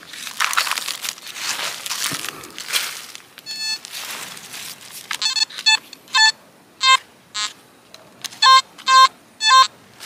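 Scraping of soil being dug by hand, then a metal detector sounding a run of short, high-pitched beeps in the second half as its coil passes over the hole. The beeps signal metal still in the ground, which the hunter isn't sure is more than fragments of a tin can.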